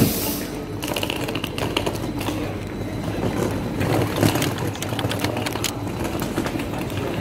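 Wheels of a rolling suitcase trundling over a station platform's paving, a rough rumble broken by many sharp clicks and knocks.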